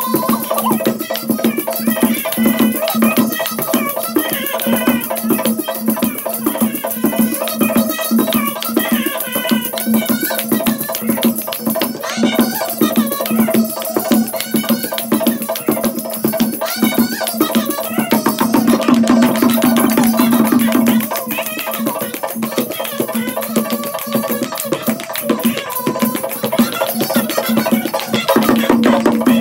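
Devotional music with a fast, steady beat of hand clapping, drum and rattling percussion, and voices singing over it.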